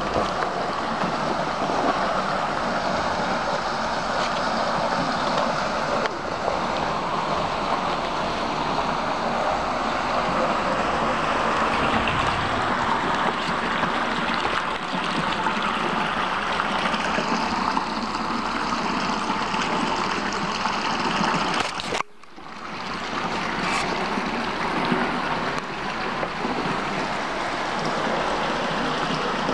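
Flowing water of a stream rushing steadily. It cuts out sharply about twenty-two seconds in and comes back at once.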